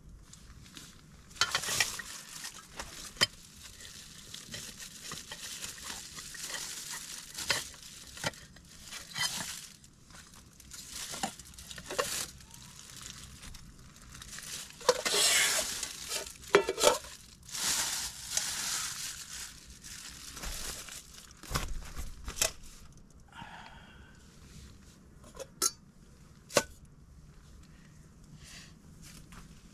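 Handling noises: clinks, knocks and rustling of objects being moved about, with louder rustling stretches about halfway through and a few sharp knocks near the end.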